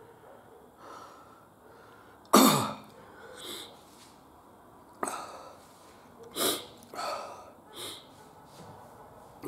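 A man breathing hard against super-hot chilli burn: a series of sharp exhales and sniffs, the loudest about two and a half seconds in with a short falling voiced groan.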